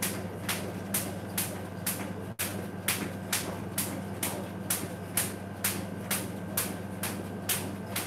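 Jump rope skipping on a tile floor: the rope and feet strike the floor in a steady rhythm of sharp slaps, about two and a half a second, over a steady low hum.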